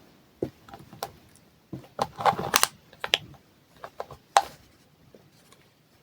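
Small metal nail drill bits clicking and rattling as they are handled and set down: a scattered run of light clicks, with a small cluster about two seconds in and a sharper click a little past four seconds.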